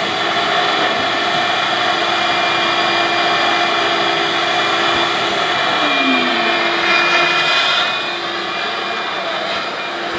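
Industrial vacuum running steadily with a whining motor and a rush of air, its hose nozzle sucking dust out of saw-cut concrete joints. It drops a little in level near the end.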